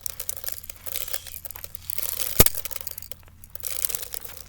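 A single sharp airsoft gun shot about two and a half seconds in, with faint clicking and handling noise around it.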